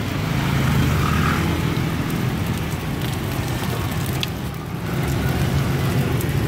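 Street traffic noise: motorbike and car engines running close by as a steady low hum.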